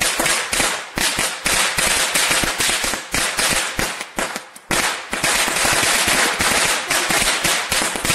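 A string of firecrackers going off in a rapid, unbroken run of sharp bangs, several a second, with a short lull about four and a half seconds in.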